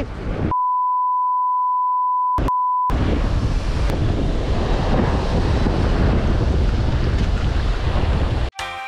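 A steady single-pitch censor beep for about two and a half seconds, with all other sound muted and one brief break in it. Around it, strong wind buffeting the microphone and surf breaking on rocks; music comes in near the end.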